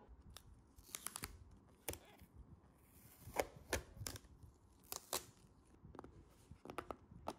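Clear plastic dessert cup being opened by hand: the seal tape on its snap-on lid is slit with a plastic knife and the lid is gripped and worked, giving a series of sharp plastic clicks and crinkles.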